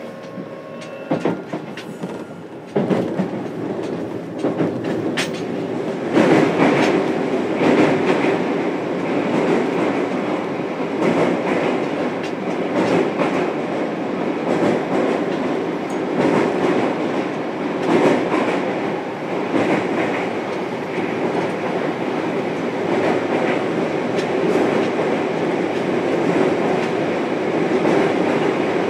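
Running noise inside a motor car of a JR Kyushu 303 series electric train: wheels rolling on the rails with scattered rail-joint clicks. It grows louder about three seconds in and again about six seconds in, then holds steady.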